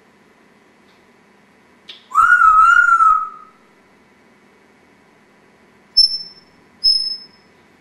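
African grey parrot whistling: one long wavering whistle about two seconds in, then two short high-pitched whistles near the end.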